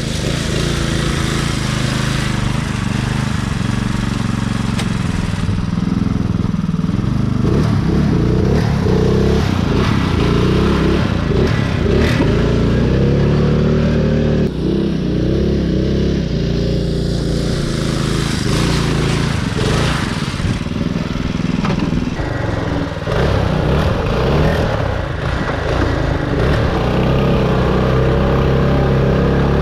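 Riding lawn mower's engine running under load, its pitch rising and falling as the throttle and load change.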